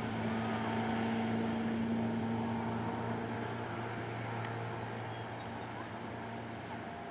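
Motorboat engine running at speed while towing tubes, a steady hum that slowly fades from about two seconds in as the boat moves away.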